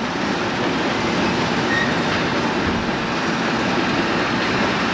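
A consist of red diesel-electric locomotives running with a steady mechanical rumble and no distinct knocks or horn.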